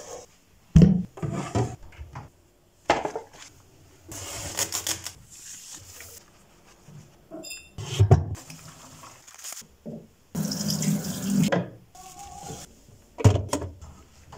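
Water running from a tap in short spells, mixed with knocks and clattering.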